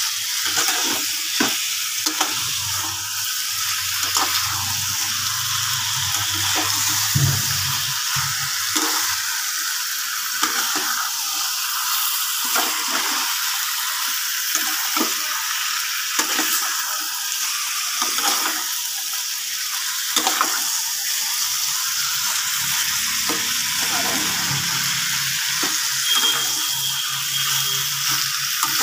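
Raw chicken pieces sizzling in hot oil and spice masala in a kadai, stirred with a spatula that knocks and scrapes against the pan many times. This is the meat being turned to coat it just after it goes into the cooked-down masala.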